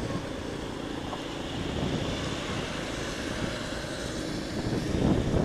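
Bajaj CT100's small single-cylinder four-stroke engine running at a steady cruise, heard under wind rushing over the microphone.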